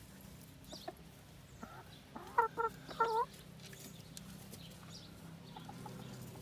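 Domestic hen clucking: a quick run of three short clucks and then a longer one about two and a half seconds in, with a few faint clucks later.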